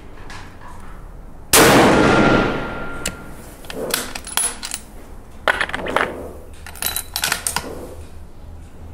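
A single rifle shot about one and a half seconds in, its echo dying away over about two seconds, followed by a run of sharp metallic clicks and clacks as the bolt is worked and the next round is loaded.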